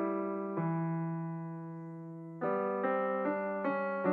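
Background piano music, slow and gentle. A chord is held and fades away for nearly two seconds, then single notes resume about two or three a second.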